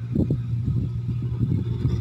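Engine of a rice combine harvester running steadily: a low, even drone with irregular mechanical clatter over it.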